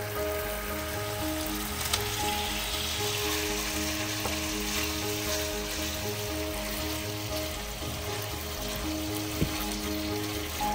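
Food sizzling steadily as it fries in hot oil in a pan, with two sharp clicks, one about two seconds in and one near the end.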